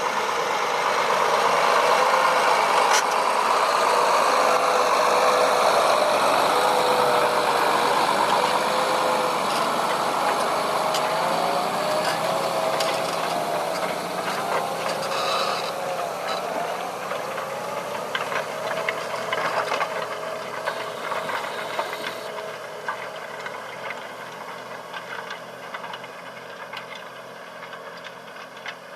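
John Deere 8335R tractor's six-cylinder diesel engine working under load pulling a nine-furrow plough, its note wavering slightly, with scattered clicks and rattles. The sound grows steadily fainter through the second half.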